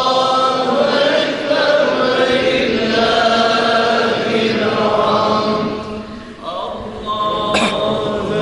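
Islamic devotional chanting at a mevlid: long, held, ornamented vocal lines that ease off briefly about six seconds in before resuming, with a single click shortly after.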